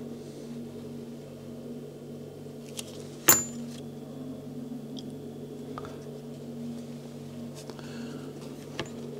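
A steady low hum under quiet handling of leather. There is one sharp tap about three seconds in as the glue tube is set down on the bench, then a few faint soft ticks as the glued sheath edges are pressed together by hand.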